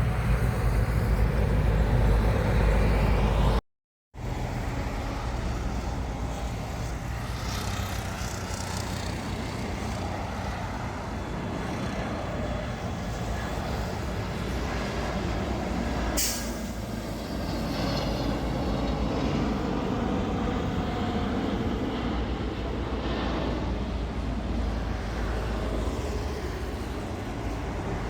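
Steady outdoor rumble of aircraft engines with wind noise on the microphone. The sound cuts out completely for a moment about four seconds in, and there is one sharp click about halfway through.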